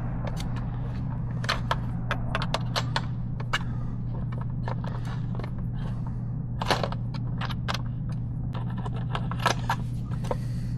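A T25 Torx driver unscrewing screws from a motorcycle's cover: scattered small clicks, taps and light metallic scrapes of the tool and loosened screws, over a steady low hum.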